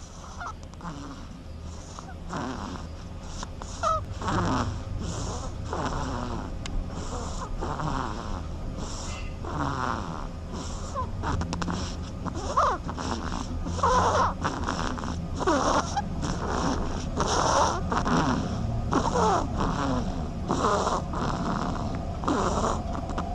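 A sleeper snoring: a long run of rasping snores about once a second or a little slower, some with squeaky rising and falling whistles.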